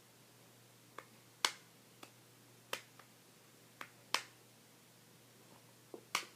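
A series of sharp, irregular clicks: an iPhone 3G's screen assembly being pressed down and snapping into place in its case.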